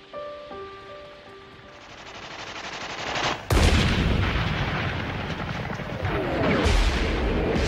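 Battle sound effects. A building rumble breaks suddenly into loud, dense machine-gun fire and explosions about three and a half seconds in. Near the end a falling whistle leads into another blast. A few sustained musical notes sound at the start.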